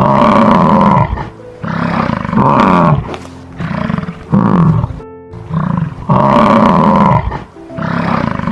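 A big cat roaring over and over: a series of loud roars of about a second each, with short breaks between them.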